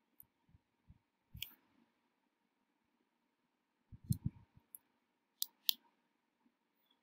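Quiet room tone with a few faint clicks and soft low thumps, the loudest being a short cluster of thumps about four seconds in and two sharp clicks about a second after it.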